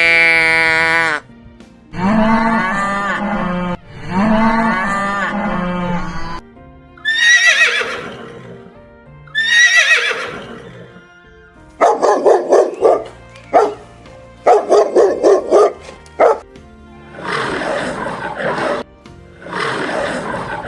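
A run of separate animal calls of several kinds, one after another with short gaps. Around the middle are two calls that fall steeply in pitch, followed by rapid pulsing calls and then rougher, noisier ones.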